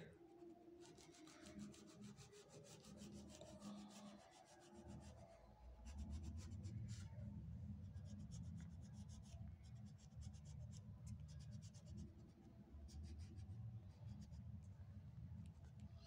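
Faint scratching of an oil pastel crayon rubbed on drawing-book paper in many quick short strokes, colouring in.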